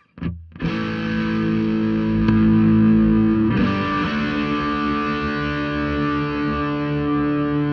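Electric guitar played through a Wampler Pinnacle distortion pedal into a Wampler Eagle compressor. A distorted chord is struck about half a second in and held. A second chord is struck about three and a half seconds in, and both ring on with long, even sustain.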